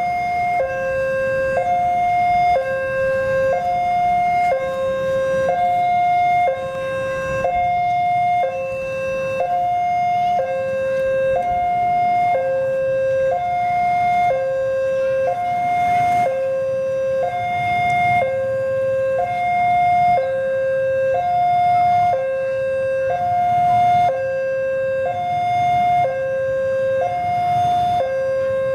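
Railway level-crossing warning alarm sounding its two alternating notes, a higher and a lower tone each held just under a second in an even, repeating cycle, signalling that a train is approaching.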